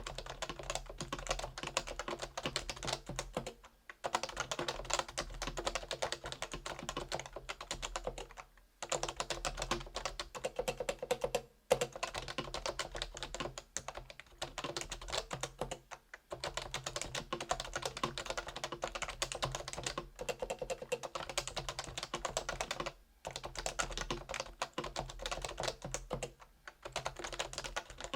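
Steady typing on a Realforce R2 keyboard with stock 45 g Topre electrostatic-capacitive switches: dense runs of keystrokes broken by short pauses every few seconds, with one louder stroke a little before the middle.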